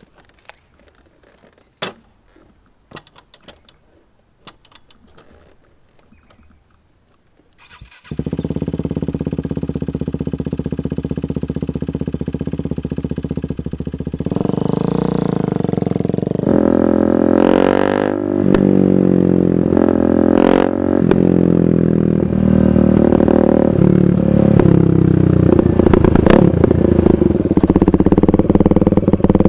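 A few faint clicks and knocks, then about eight seconds in a 2015 KTM 390 Duke's single-cylinder engine with an aftermarket KO Lightning exhaust starts and idles. From about fourteen seconds it runs louder with changing revs and two sharp cracks, then holds a steady, slowly rising note near the end.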